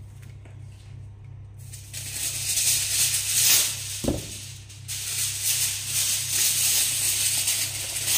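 Aluminium foil crinkling and rustling as it is handled, in two spells starting about two seconds in, with a dull thump about four seconds in.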